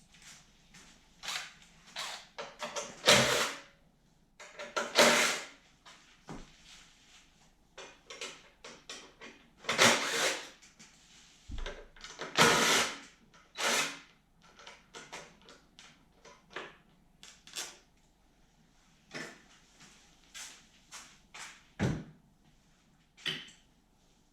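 Hand tools and metal and plastic parts being handled while a snowblower's carburetor is taken off: irregular clicks, knocks and short scraping rattles, with a handful of louder ones spread through.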